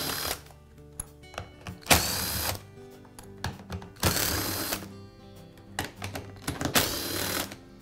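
Cordless screwdriver running in four short bursts, each under a second, backing screws out of a plastic motor cover.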